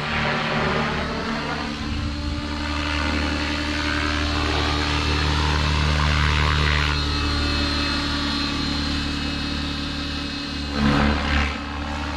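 Align T-Rex 650X electric RC helicopter in aerobatic flight: a steady motor and rotor whine with a buzz from the spinning blades, shifting slightly as it manoeuvres.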